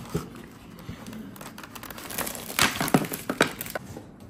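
Crinkling of clear plastic packaging, with a few sharp clicks. Near the middle comes a denser cluster of clicks and crackles from small plastic figure parts being handled.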